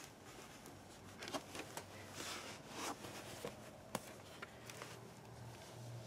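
Faint close rustling with a few soft clicks, the handling noise of a hand moving around a handheld camera and a cat on carpet; the rustling swells briefly between about two and three seconds in.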